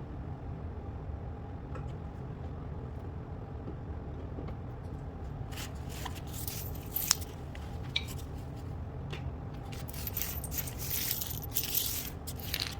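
Scraping and rustling of parts being handled, with a couple of sharp clicks a little past halfway, over a steady low hum.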